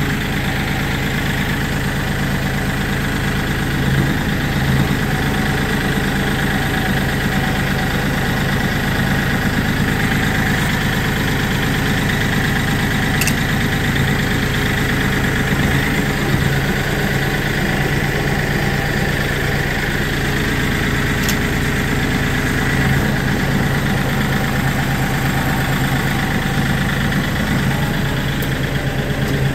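Kioti CK3510 compact tractor's three-cylinder diesel engine running steadily as the tractor is driven slowly, with a few brief swells in engine sound.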